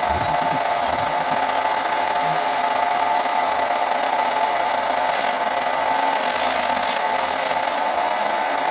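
Milling machine cutting an aluminium block, a steady machining noise with a strong constant whine from the spinning cutter.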